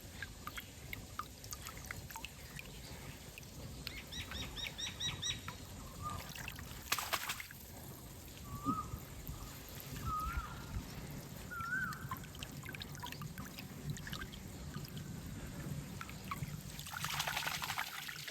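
Water trickling and splashing, with two brief splashes about seven and seventeen seconds in. Birds call over it: a quick run of high chirps about four seconds in, then a few short wavering whistles.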